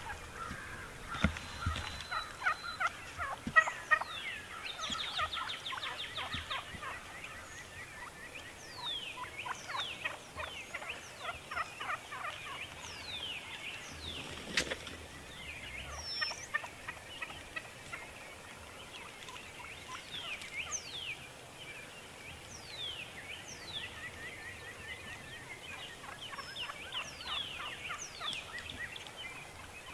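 Wild turkey tom gobbling several times at close range, each gobble a rapid rattling run of notes, over a background of thin falling whistles.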